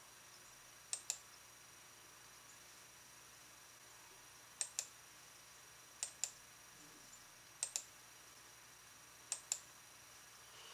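Computer mouse clicking: five quick pairs of sharp clicks, a second or two apart, over faint room hiss.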